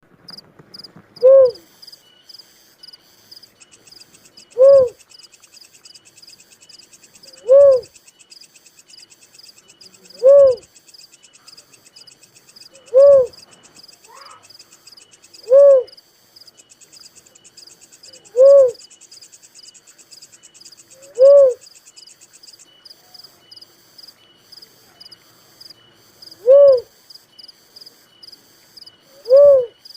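A dove calling, a single short low hoot repeated about every three seconds, ten times, with one longer pause past the middle. Steady fast high-pitched insect chirping runs underneath.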